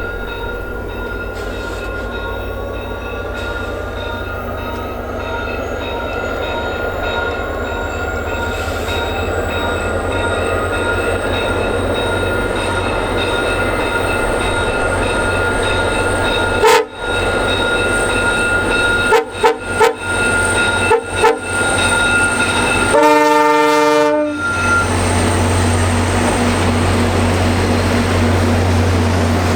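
VIA Rail locomotive horn sounding a long, continuous chord that grows louder as the train approaches, broken up by several short gaps in the second half: a horn show that includes the emergency horn. A blast of a different, lower-pitched horn comes shortly before the locomotive passes with a heavy, low rumble.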